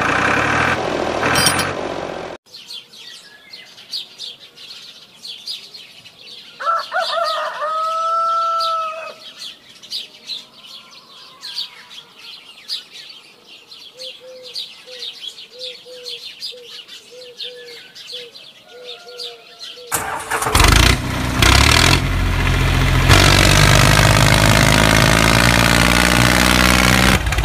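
Birds chirping and calling for most of the stretch. About twenty seconds in, a small engine starts up and runs loudly and steadily.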